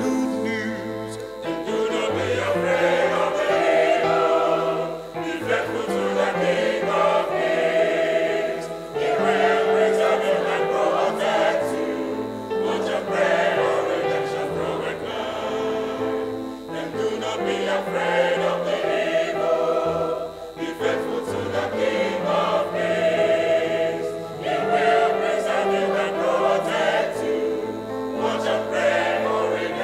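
Mixed church choir singing a sacred piece in several-part harmony, holding long notes in phrases of a few seconds with short breaks for breath between them.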